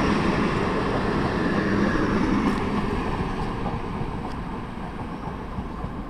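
PKP Intercity passenger coaches rolling past on the rails and pulling away, their wheel rumble fading steadily as the tail of the train recedes.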